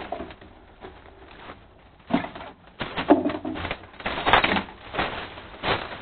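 Footsteps on dry leaves and loose wooden boards inside a concrete tunnel: irregular steps, starting about two seconds in.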